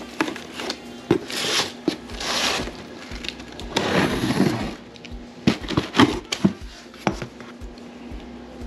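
A packed shipping box being opened and its packing material handled: rustling, crinkling bursts of noise with scattered sharp clicks and knocks.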